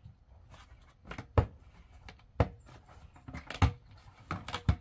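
Plastic five-gallon bucket lid and pour spout being worked open by hand: several irregular sharp clicks and knocks.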